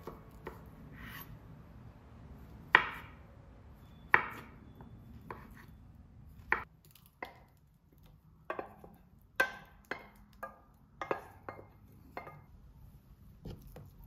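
Kitchen utensils knocking and tapping in food preparation: about a dozen irregular sharp knocks, the loudest two about three and four seconds in, the rest lighter and more closely spaced in the second half.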